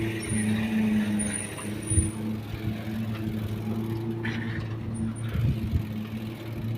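A motor vehicle engine running at a steady speed, with a low hum under road and wind noise and a single thump about two seconds in.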